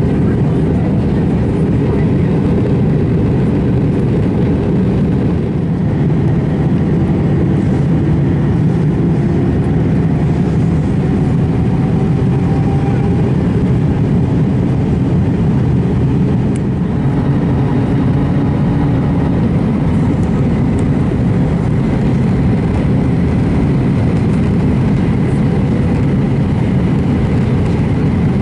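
Airbus A320 cabin noise on descent, heard from a window seat over the wing: a steady, loud rumble of jet engines and rushing airflow with flaps extended. A faint whine rises slightly in pitch about a third of the way in.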